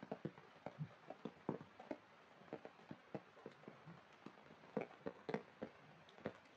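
Raindrops falling into puddles on wet ground: scattered, irregular drips and taps, several a second, over a faint hiss.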